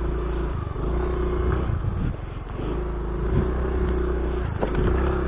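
Motorcycle engine running under way, easing off briefly about half a second in and again around two seconds in, with a few short knocks.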